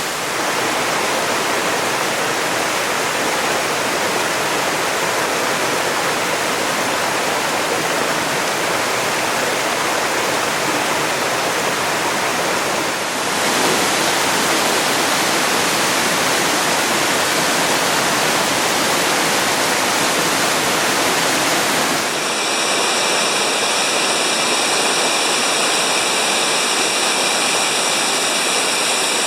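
A waterfall rushing steadily as a loud, even roar of falling water. The sound shifts abruptly twice, about 13 and 22 seconds in.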